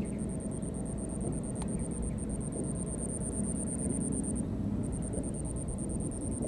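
A high, steady insect trill that breaks off briefly about four and a half seconds in, over a low rumbling noise.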